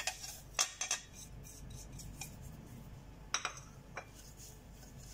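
A ceramic plate clinking against the rim of a glass mixing bowl as brown sugar is scraped off it, then a wooden spatula stirring in the bowl. A few sharp clinks fall in the first second and another about three and a half seconds in.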